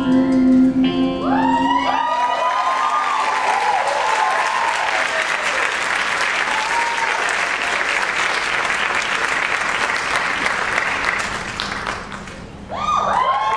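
The last held chord of an electric guitar and piano rings for about a second, then an audience applauds and cheers, with whoops rising and falling early on. The applause fades out about twelve seconds in, and a few voices cheer again at the very end.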